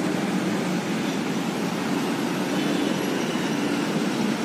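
Steady hum of city road traffic: cars and motorcycles running along a riverside road, with no single vehicle standing out.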